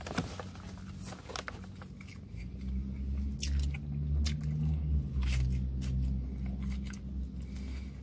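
A man biting into and chewing a burger, with wet mouth clicks and crunches. From about two seconds in, a low droning hum rises behind the chewing and fades near the end.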